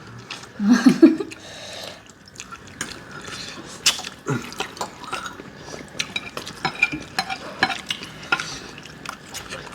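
Eating at a table: utensils clicking and scraping against bowls of ramen, many scattered clicks, with a brief voice sound about a second in.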